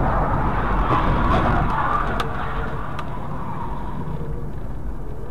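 A car driving, with a steady engine and tyre rumble that eases slightly after about two and a half seconds. A couple of faint clicks come a little after two and three seconds in.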